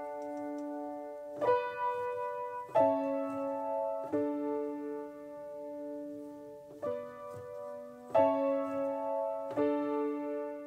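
Background music: slow keyboard chords, each struck and held, a new chord roughly every one and a half seconds with one longer held chord in the middle.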